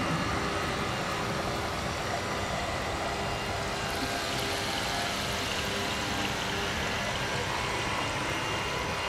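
Steady rushing noise like flowing water, with faint held drone tones beneath it: an ambient water soundscape.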